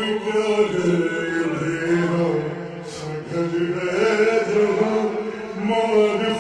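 A qasida chanted by a male voice, slowed down and heavy with reverb: long held notes that waver slowly in pitch.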